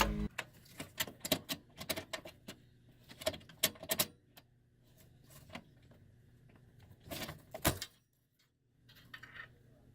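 Irregular light clicks and taps of small hard objects, with a quiet gap about eight seconds in.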